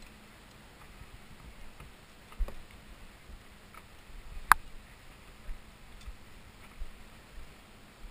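A few scattered knocks and clicks over a low background hiss, with one sharp click about halfway through the loudest.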